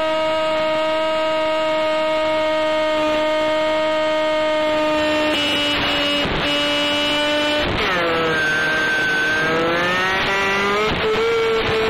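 Ultra-micro Stryker RC plane's electric motor and propeller whining at a steady pitch. A couple of brief crackles come about six and eight seconds in, then the whine drops in pitch and climbs back up near the end, during a Spektrum receiver lockout.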